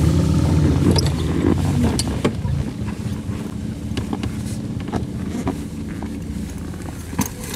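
Sports coupes driving slowly past close by, their engines running at low revs. The engine sound is loudest at first and fades, with a few sharp clicks along the way.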